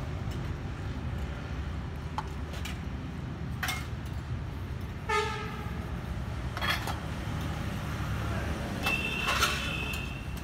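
Outdoor background: a steady low rumble with a few short clicks, a brief toot about halfway and a higher, longer toot near the end.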